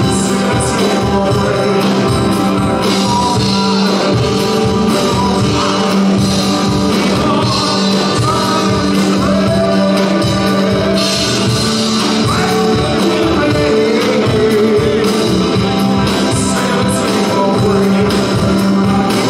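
A live rock and roll band playing a song, with a lead voice singing over a steady beat.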